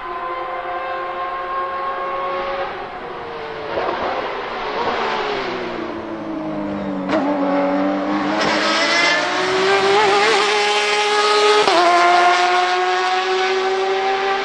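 Porsche 991.2 RSR race car's 4.0-litre flat-six on an open exhaust. It runs high at first, then drops in pitch in steps with short blips a few seconds in as it downshifts under braking, sits lowest around the middle, then climbs steadily under hard acceleration, with a sudden drop and climb again about twelve seconds in at an upshift.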